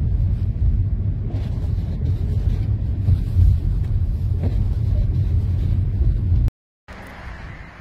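Blizzard wind buffeting the microphone with a heavy, steady low rumble. It cuts off abruptly about six and a half seconds in, and a much quieter windy hiss follows.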